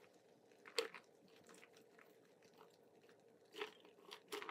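Faint pouring of a frothy drink from a cocktail shaker tin through a metal strainer, with a few small clicks of the strainer against the tin. The sharpest click comes about a second in, and two more come near the end.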